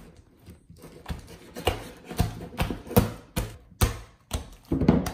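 Glue slime being slapped, pressed and squished against a tabletop by hand as it is kneaded: wet slaps about two to three times a second, louder after the first second or so. The slime is being worked after activator has been added, to activate it.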